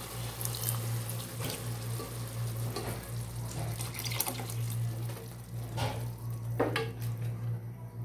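Milk being poured into a pan of bubbling vermicelli and sago syrup, a running, splashing pour. The ladle knocks against the pan a few times over a steady low hum.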